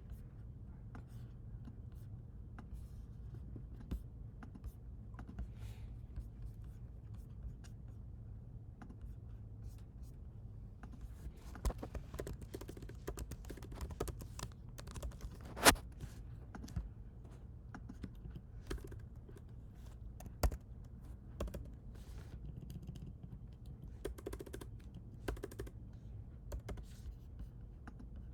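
Typing on a computer keyboard: irregular key clicks in short runs, with one sharp, much louder click about halfway through, over a steady low hum.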